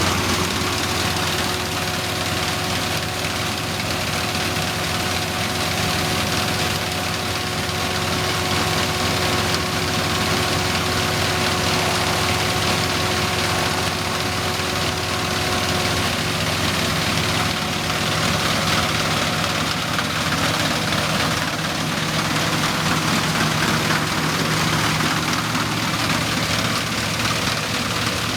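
A 1971 Dronningborg 900 combine harvester running steadily while harvesting. Its four-cylinder Perkins 4.154 diesel runs under the general clatter and rush of the threshing machinery. A thin steady whine rides on top and fades out about two-thirds of the way through.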